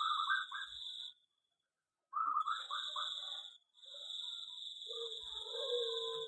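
Zebra doves (perkutut) cooing: quick rippling runs of notes near the start and again about two seconds in, then a longer, lower coo near the end. A steady high-pitched whine runs underneath, and the sound drops out completely for about a second early on.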